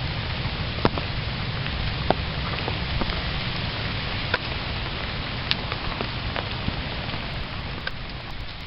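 Steady rain pouring down, with scattered louder drops striking close by about once a second.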